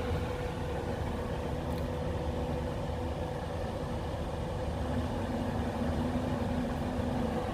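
Steady electrical hum with fan noise from a 2000-watt power inverter running an appliance under about a 1300-watt load. A lower hum grows stronger about five seconds in.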